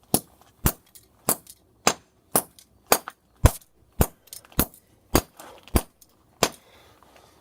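A fidget spinner being struck again and again in a steady series of hard blows, about twelve sharp impacts a little under two a second. They stop about six and a half seconds in.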